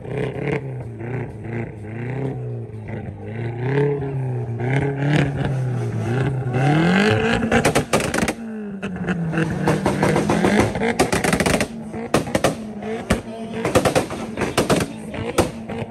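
A modified car's engine revved up and down repeatedly, with a rapid crackle of exhaust pops and bangs over it. The bangs are densest through the middle and again toward the end.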